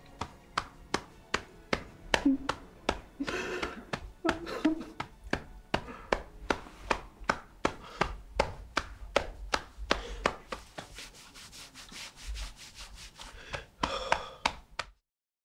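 A steady series of sharp taps or clicks, about two or three a second, with a few short vocal sounds in between. It cuts off suddenly near the end.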